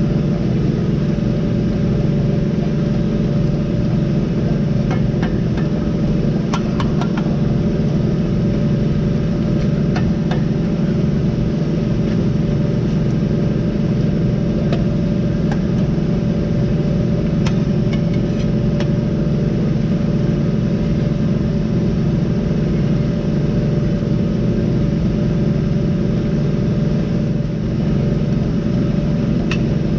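An engine running steadily at an even pitch, with a few light taps and clicks over it.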